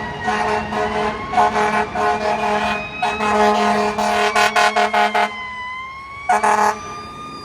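Fire truck's air horn blaring, broken into a rapid run of short blasts about four seconds in, with a siren wailing up and down beneath it. After one last horn blast near the end, only the siren is left.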